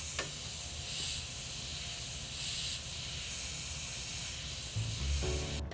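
Airbrush spraying paint in short, controlled passes: a steady hiss of air and paint that swells and eases roughly every second or so as the camouflage is feathered in.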